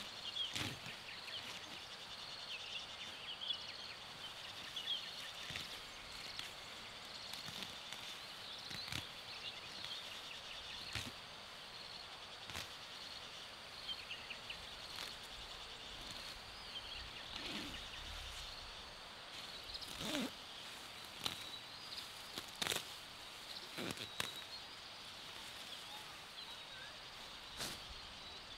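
Outdoor rural ambience: a steady high-pitched chirring with small chirps over it, broken by scattered sharp knocks and clicks, a cluster of them about two-thirds of the way through.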